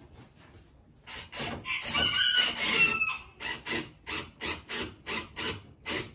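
A rooster crows about a second in. Then comes a run of short, evenly spaced rasping strokes, about three a second, as a small screw is driven by hand through wire mesh into a wooden coop frame.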